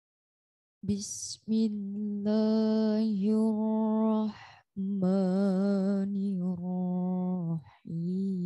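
A woman reciting the Quran in the melodic tilawah style: long drawn-out notes with vibrato, in three phrases with short breaks for breath, starting about a second in.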